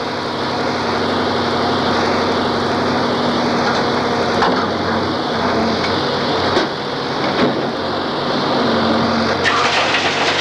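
Diesel engine of a tunnel mucking loader running steadily while its bucket scoops and lifts blasted rock spoil, with a few knocks of rock. Near the end a harsher rattle sets in as the rock is dumped into a truck bed.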